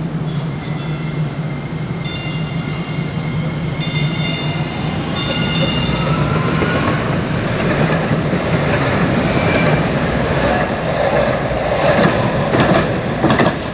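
DART Kinki Sharyo light rail train running into the station and past close by, its wheels rumbling on the rails and getting louder as it nears. High motor whine tones rise in pitch partway through, and a few sharp clacks come near the end as the cars pass.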